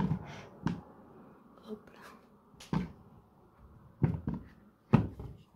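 A mirrored glass picture frame knocking and tapping against a wall as it is set in place, about four or five short knocks a second or so apart.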